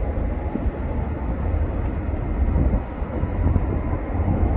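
Airbus A330-300 airliner's jet engines, a steady, heavy low rumble with a faint whine riding on it.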